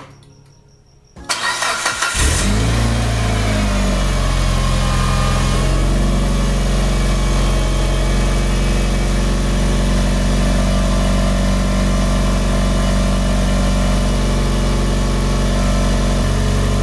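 Mitsubishi Lancer Evolution IX's turbocharged 4G63 inline-four being started with the bonnet open: about a second of starter cranking, then the engine catches with a brief rise in revs and settles into a steady idle. This is the engine running on its freshly fitted exhaust manifold.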